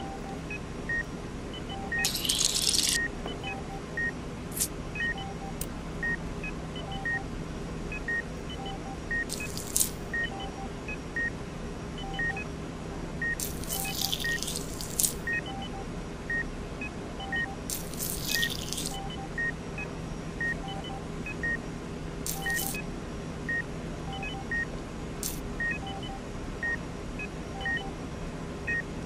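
Steady electronic beeping, about one and a half beeps a second at two pitches, like a hospital heart monitor, over a low steady hum. Several short hissing bursts come and go, the longest about midway.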